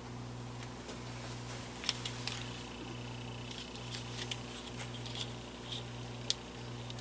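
Small clicks and light handling noises of wires being worked into a fan's switch, the sharpest about 2 s and 6 s in. Under them runs a low hum that swells about once a second.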